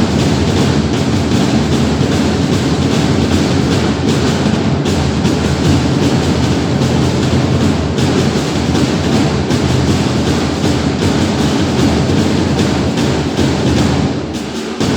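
Loud music with a strong percussive beat, dipping in level near the end.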